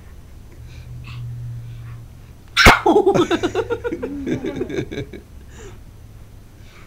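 A baby's sudden loud vocal outburst about two and a half seconds in, followed by a couple of seconds of rapid, choppy babbling.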